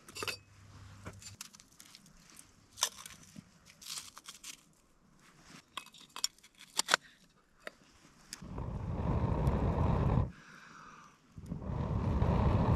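Light clicks, crunches and crackles of hard frozen snow being packed into a small metal pot over campfire coals, then two long breaths, each about two seconds, blown hard into the glowing embers to bring the fire back to flame.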